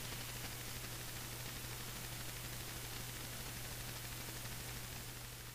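Steady hiss with a low, steady hum underneath, starting to fade near the end.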